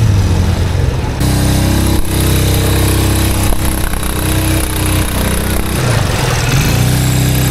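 ATV engine running as the quad drives through a shallow muddy stream, a steady engine note that dips and then climbs again near the end.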